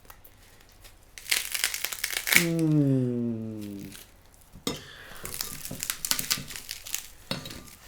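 Crispy deep-fried pork leg skin crackling and crunching as it is broken into, in two bursts of dense crackles. Between them comes one long exclamation from a person, falling in pitch.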